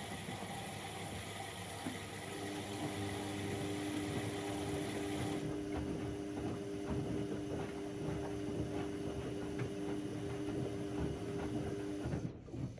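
Bauknecht WA aquaton 1400 front-loading washing machine running its 60 °C cottons wash: the motor turns the drum, with a steady motor hum and water sloshing and clicking inside. The hum comes in about two seconds in, and the sound drops away abruptly just before the end as the drum stops.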